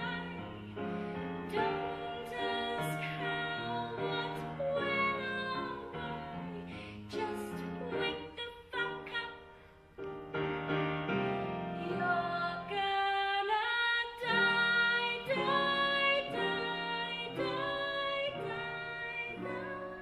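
A woman singing a show tune on stage with musical accompaniment, her voice sliding between sustained notes, with a brief break about halfway through.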